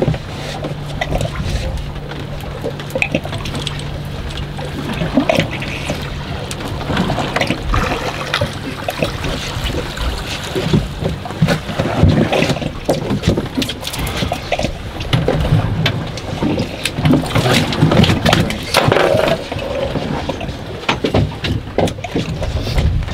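Water sloshing and slapping against a drifting fishing boat's hull, with scattered knocks. A low steady hum is heard for the first several seconds and again for a while past the middle.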